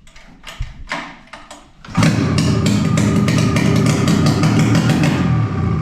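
Polaris Indy snowmobile's two-stroke engine pull-started with the muffler off. It turns over on the recoil cord, catches about two seconds in, and then runs very noisily before starting to die down at the end.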